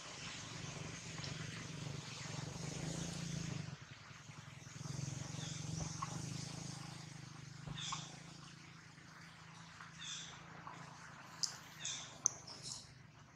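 Outdoor ambience: a steady low hum under an even hiss, with several short high chirps in the second half.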